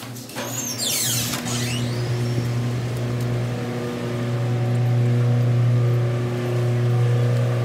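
City street traffic with a steady low engine hum, growing louder as a door opens onto the street. There is a brief high squeal about a second in.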